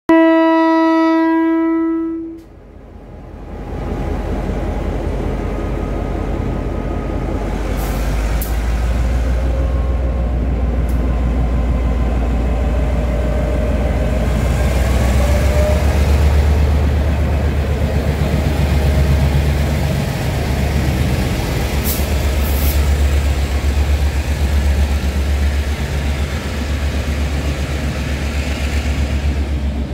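Taiwan Railways R100-class diesel-electric locomotive R127 sounding a single-tone horn for about two seconds, then its diesel engine powers up and the train pulls out: a steady low rumble that grows slightly louder as the coaches roll past, with a few sharp high clicks from the wheels.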